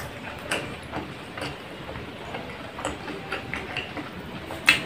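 Close-up mouth sounds of a person chewing food: irregular wet clicks and smacks, with one sharper click near the end.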